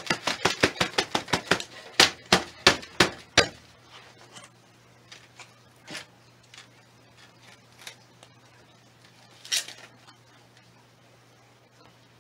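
Potting a cactus by hand: a fast run of about twenty sharp taps and knocks on the pot and table over the first three and a half seconds. Then scattered faint clicks, and a brief scrape of soil about two and a half seconds before the end.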